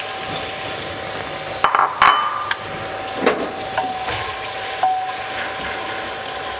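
Sliced onions sizzling in hot oil in an aluminium pressure cooker, a steady frying hiss. A couple of sharp knocks come just under two seconds in, followed by a wooden spatula knocking and scraping as the onions are stirred.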